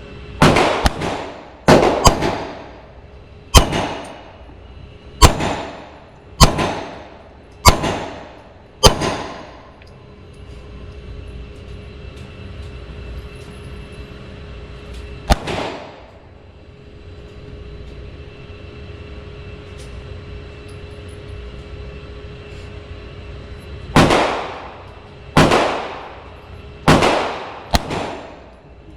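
9mm Glock 19 pistol shots, each with a ringing echo. About eight shots come over the first nine seconds, a single shot follows near the middle, and four more come near the end.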